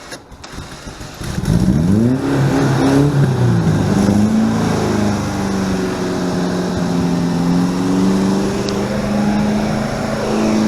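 Engine revving up unsteadily, then running at a steady high speed.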